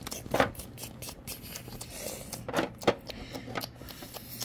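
Small plastic toys handled inside a plastic dollhouse: light scraping and clicking, with a louder knock about half a second in and two more close together near three seconds in.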